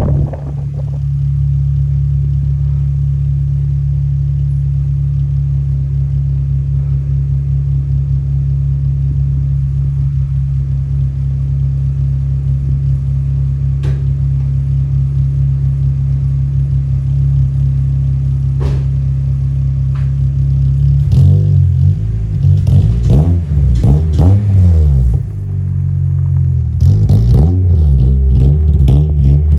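Car engine running at a steady idle. About 21 seconds in, its pitch starts swinging up and down as it is revved, with a few clicks and knocks.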